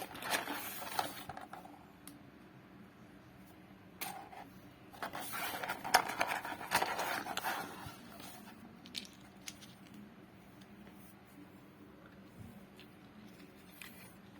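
Hands handling a toy and its packaging: bursts of rustling and scraping in the first second or so and again from about four to eight seconds in, followed by scattered light clicks and taps.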